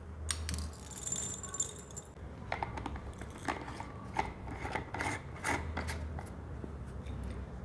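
Black peppercorns dropping and clinking into a glass jar, followed by scattered clicks and scrapes as a grinder head is fitted onto the jar.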